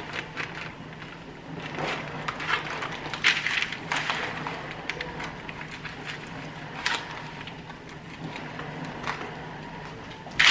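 Plastic bag of raw chicken thighs crinkling and rustling as it is cut open with kitchen scissors and the thighs are pulled out, with scattered snips and clicks. A faint low steady hum sits underneath.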